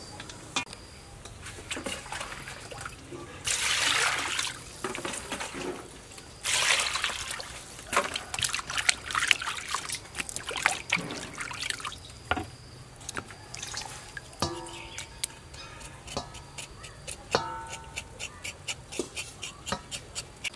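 Water poured into a steel basin twice in long splashing runs, then hands washing offal in the water, with repeated sloshing and splashes.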